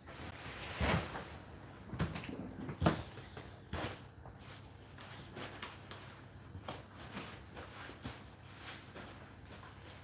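Whirlpool dishwasher running mid-cycle, water washing inside with a steady wash, and several sharp knocks in the first few seconds, the loudest about three seconds in, then smaller ones.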